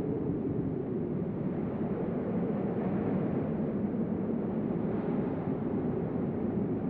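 Deep storm wind blowing hard and steadily, a low rushing sound, with slight gusts swelling about three and five seconds in.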